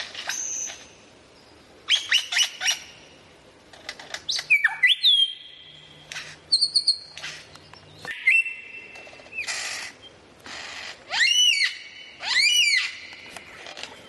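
A songbird singing a varied song of loud whistled notes, chirps and trills in separate phrases with short pauses between them. Near the end come two runs of quickly repeated rising-and-falling notes.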